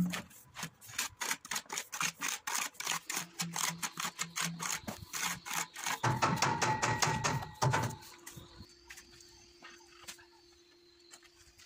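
Steel trowel scraping and knocking against a bucket of tile adhesive and spreading the mortar across the back of a ceramic tile, in quick repeated strokes, several a second. The scraping stops about eight seconds in, and only faint handling sounds follow.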